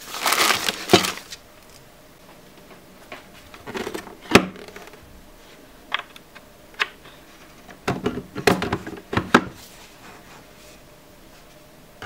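A plastic bag of mounting parts crinkles briefly at the start. Then come a string of separate sharp plastic clicks and knocks as the fish finder's display head is handled and tilted on its mounting bracket.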